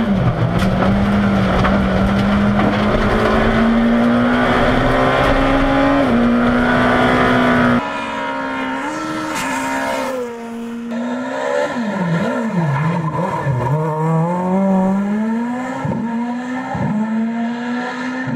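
A rally car engine running hard at high revs, heard from inside the cockpit: loud and steady, with small shifts in pitch. About eight seconds in the level drops suddenly, and a rally car is heard from the roadside, its revs falling and climbing sharply several times as it passes.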